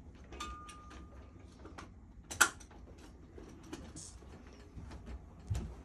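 Scattered clicks and rattles of straps and buckles being fastened on a chiropractic treatment table, with a brief thin squeak about half a second in, one sharp click about two and a half seconds in, and a dull knock near the end.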